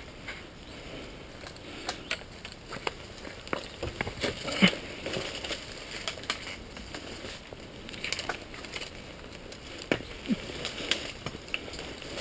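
Irregular crunching and crackling of someone moving through forest undergrowth, twigs and brush snapping underfoot and against the body, with one sharper snap a little before halfway.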